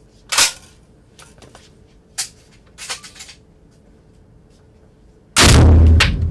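A single very loud shot from a SIG 510 (Stgw 57) rifle in 7.5x55 Swiss fitted with a large muzzle brake, fired about five seconds in; the blast is heavy in the low end and rings on for nearly a second in the small indoor range. Earlier there is a sharp clack about half a second in and a few faint clicks as the rifle is handled.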